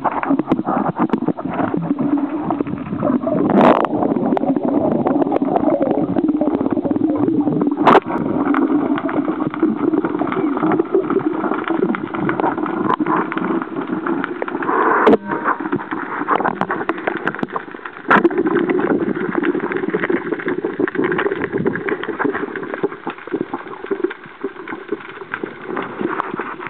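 Muffled underwater noise heard through a camera's waterproof housing: a steady low drone with a few sharp knocks.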